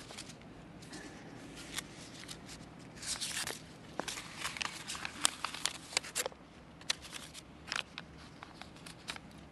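Papers being handled close to a lectern microphone: irregular soft rustles and small clicks, with a busier patch of rustling in the middle.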